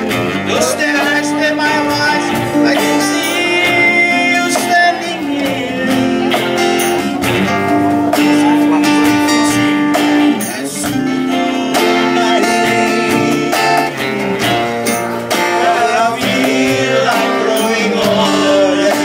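A man singing live into a microphone, holding long notes, accompanied by strummed acoustic guitars and a bass guitar.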